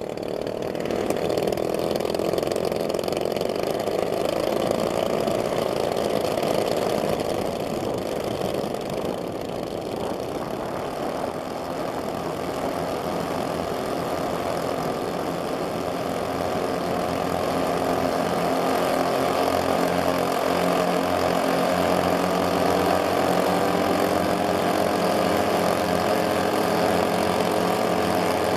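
The four DLE-20 single-cylinder two-stroke gasoline engines of a giant-scale B-24 model bomber running together on the test stand during an engine-sync check. The sound is steady, easing slightly about ten seconds in and building again from about seventeen seconds.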